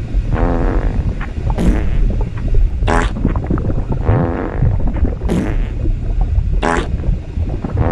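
A string of cartoon fart sound effects, short buzzy blasts following one another every second or so, over a continuous low rumble.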